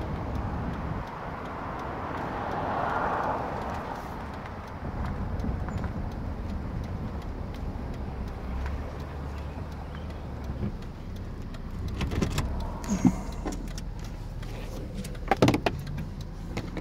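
Car engine running with traffic noise, a vehicle swelling past about two to four seconds in. A few sharp knocks and clicks near the end.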